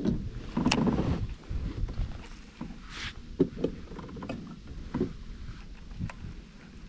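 Kayak on open water: a low wind rumble on the microphone that is strongest in the first second or so, then water lapping with a handful of light knocks against the hull and fishing gear, and a brief hiss about three seconds in.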